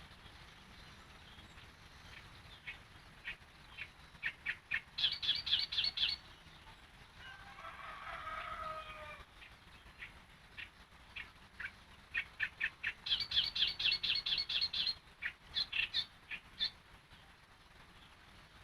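Wild birds calling: twice, a run of short, sharp, high notes that speeds up into a fast trill, and between them a brief lower warbling phrase.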